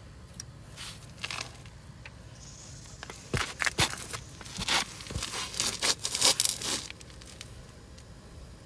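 Hands working a Harley-Davidson kickstand and its return spring: a run of short metal clicks and scrapes from about three to seven seconds in.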